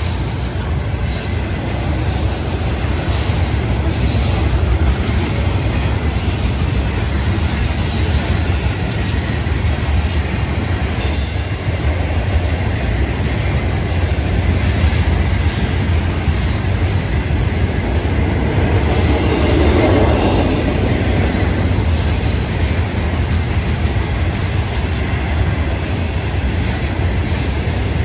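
Florida East Coast Railway mixed freight train rolling past at speed: a loud, steady rumble of steel wheels on the rails with clatter from the cars, unbroken as container, hopper and flat cars go by.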